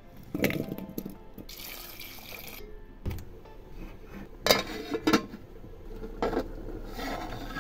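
Aluminium cooking pot and its lid clanking, with several sharp knocks as they are handled and set down. A short burst of running water comes about two seconds in.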